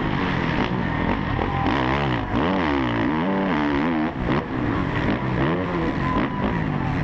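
Suzuki RM-Z450 motocross bike's four-stroke single-cylinder engine run hard, its pitch climbing and dropping over and over as the throttle is worked and gears change through the track's turns and jumps. Heard close up through a helmet-mounted camera.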